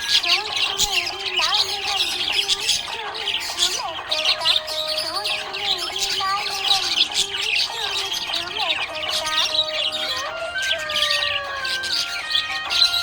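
A group of budgerigars chirping and warbling together in a continuous dense chatter of quick high chirps over lower wavering, gliding notes.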